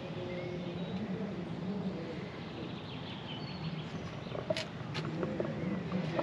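Faint voices of other people talking in the background over a steady outdoor hiss, with two light clicks in the second half.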